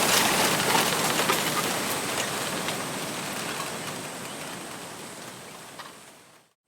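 Wind rustling through a bamboo grove, leaves and stems hissing and crackling, fading out steadily to silence at the end.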